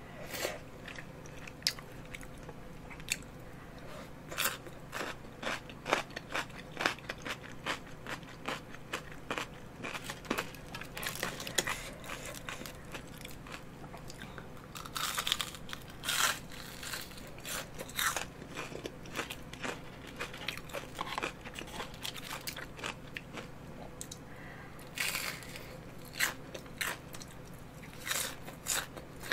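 Close-miked eating: chewing and biting with many sharp crunches, as of crispy batter-fried squid rings and hot dog coating, mixed with softer wet mouth sounds of chewy rice cakes.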